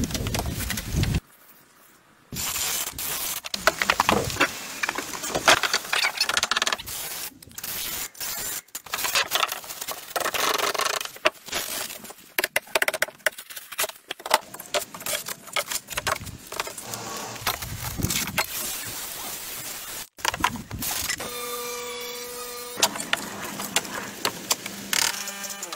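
Hand and tool work on timber: repeated knocks, clatters and rattles, changing abruptly several times, with a brief steady whine near the end.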